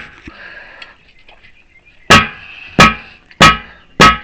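Heavy hammer beating a heavy-equipment tire's bead down over the steel rim, each blow ringing. One blow lands right at the start, then after a pause of about two seconds come four more, about two-thirds of a second apart, driving the bead onto the rim.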